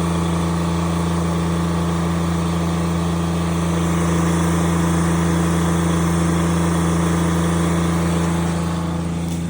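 Polaris side-by-side engine idling steadily, dropping slightly in level near the end.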